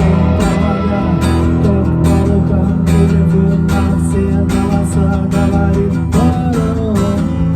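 Music led by strummed guitar, with steady held chords and an even beat.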